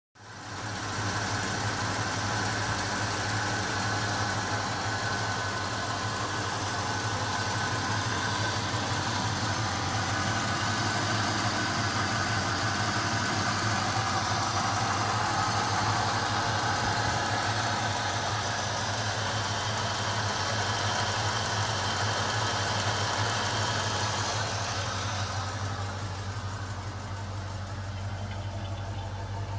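1979 Pontiac Trans Am's engine idling steadily, cutting in abruptly. Near the end the sound turns duller, losing its higher part.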